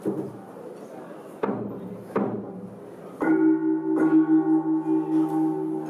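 Opening of a traditional Vietnamese instrumental performance: two sharp percussive strikes, then about three seconds in a struck metal instrument such as a gong starts ringing on with a steady, wavering tone. It is struck again about a second later.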